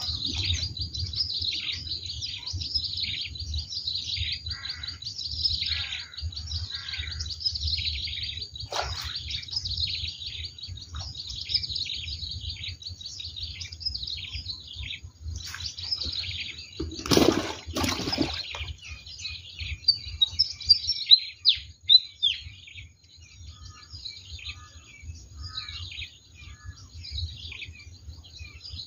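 Many small birds chirping and calling continuously, over a low rumble. About seventeen seconds in comes a brief loud rustle, followed by a few sharp clicks.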